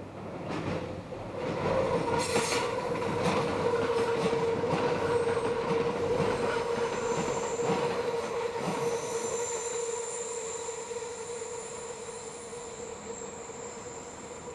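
Meitetsu electric train taking a curve, its wheels squealing against the rails: a steady mid-pitched squeal with a higher whistling tone joining partway, over the rumble and clatter of the wheels. The squeal swells about two seconds in and slowly fades toward the end.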